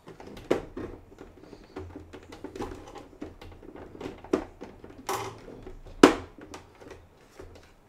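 Plastic spring clamps and a clear plastic model submarine hull being handled and clamped: irregular clicks, taps and knocks, with a sharper snap about six seconds in and a short scrape just before it.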